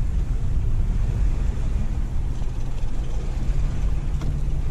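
Steady low rumble, with a faint low hum coming in partway through.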